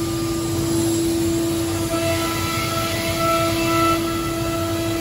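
Biesse Skill 1536 GFT CNC router machining a panel: a steady hum with a higher whine that comes and goes several times.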